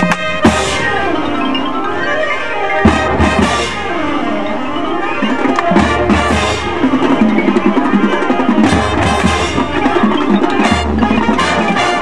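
A high school marching band playing its field show, with mallet percussion and drums over sustained band chords and heavy low hits every few seconds.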